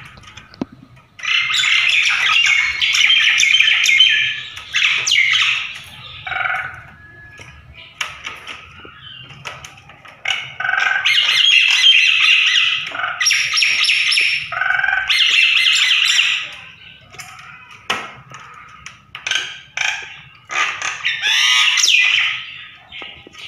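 A mated pair of jalak nias mynas in separate cages calling back and forth to each other, in loud bursts of song a few seconds long, with short clicks in the gaps.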